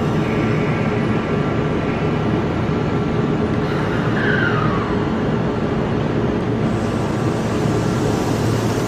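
Kintetsu limited express electric train starting away from the platform: a steady hum, a short falling squeal about four seconds in, and a hiss coming in near the end as it gathers speed.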